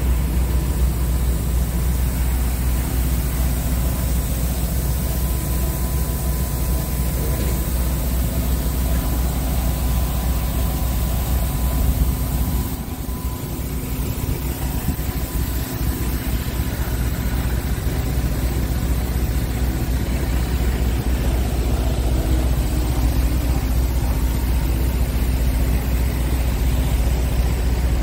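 Scania R tractor unit's diesel engine idling steadily with an even low rumble, easing slightly for a moment about halfway through.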